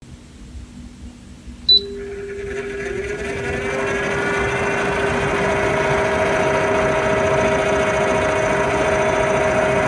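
OTTO AP155 appliance starting with a short beep, then its motor spinning up into a steady whine with several tones. This is the strange noise its owner reports.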